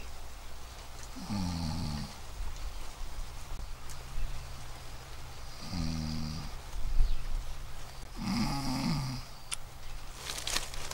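A person snoring: three snores, each under a second long, a few seconds apart.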